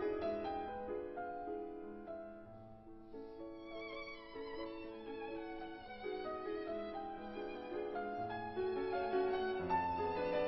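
Background music: a slow melody on violin over piano, the violin entering about three seconds in.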